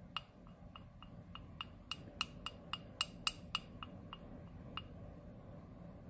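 Chinese ink brush clinking against a porcelain dish while ink is being mixed in it: a quick run of light, ringing clinks about four a second, loudest in the middle, stopping well before the end.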